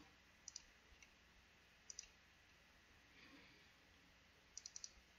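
Faint computer mouse clicks: a double click about half a second in, another about two seconds in, and a quick run of four clicks near the end.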